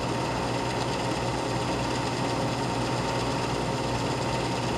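Steady mechanical whir and hum of an 8 mm film projector running, with a thin high tone held throughout.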